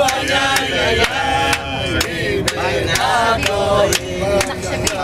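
A group of people singing together inside a coach, clapping along in time, about two claps a second.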